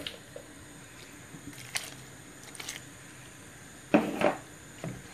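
Stainless-steel cooking pot knocking and clinking as it is handled, with a louder metallic clunk and brief ringing about four seconds in as it is set down on the gas hob's grate.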